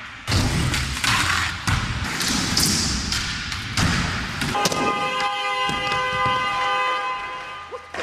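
Skateboard wheels rolling on an indoor ramp, with the thuds and clacks of the board hitting and landing on the ramp. About halfway through, a steady tone of several pitches comes in and holds for about three seconds.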